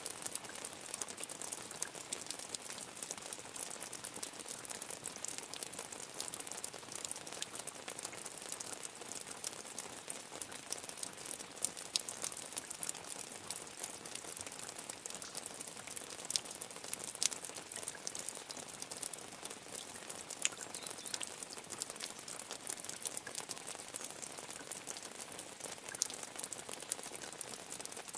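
Medium rain falling steadily, a dense even hiss of drops with many small, sharp drop hits scattered through it.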